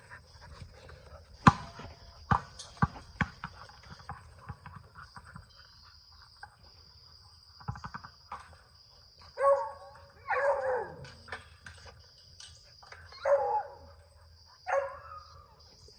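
A dog giving several short, pitched cries in the second half. A few sharp knocks come in the first few seconds.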